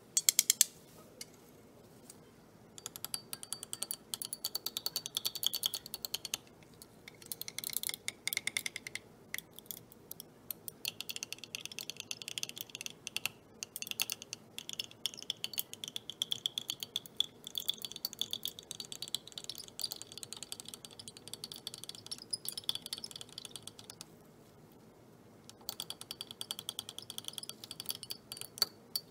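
A glass stirring rod clinking rapidly against a glass beaker and thermometer while stirring, a fast run of small glassy clicks with short breaks. It starts with a few louder taps as the rod knocks powder into the beaker, and the clicking pauses briefly near the end before starting again.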